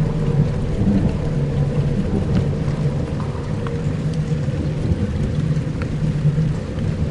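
Dark ambient soundscape: a steady low drone of held tones under a rain-like hiss with scattered small drop-like ticks and a deep thunder-like rumble.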